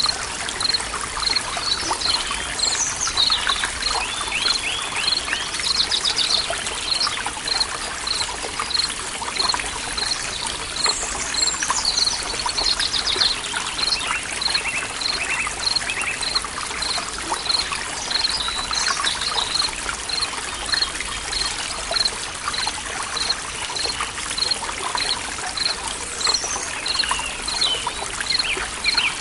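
A forest stream trickling and gurgling while several birds call and sing, including descending trills. Over this, a short high chirp repeats evenly about one and a half times a second.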